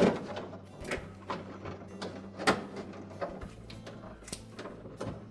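Hard plastic freezer parts, the ice maker and air duct assembly, knocking and clicking as they are shifted by hand: several sharp knocks spread out, with softer scraping between them.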